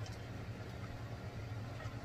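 Faint, steady low hum of a washing machine running in another room.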